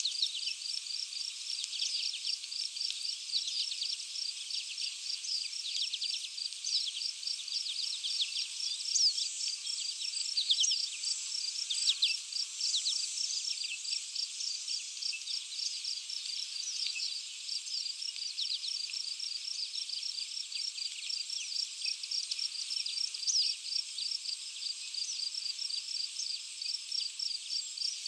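Wild birds singing, with many short, high chirps scattered throughout. Beneath them runs a steady, rapid, high-pitched pulsing trill that goes on without a break.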